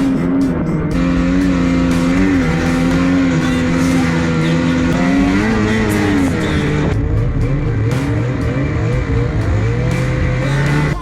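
Ski-Doo Renegade XRS 850's two-stroke twin engine running hard at high revs, its pitch dipping and recovering a couple of times, then running at lower revs for the last few seconds.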